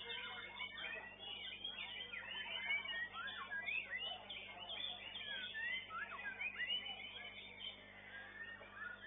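White-rumped shamas singing: fast, varied whistled phrases of sliding notes, several birds overlapping at once, over a steady low hum.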